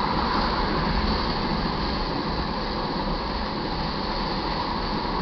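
Crude oil train's tank cars rolling past: a steady rumble and rush of steel wheels on rail.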